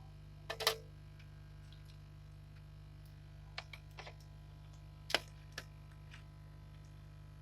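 Scattered sharp clicks and taps, a few close together, over a steady low electrical hum.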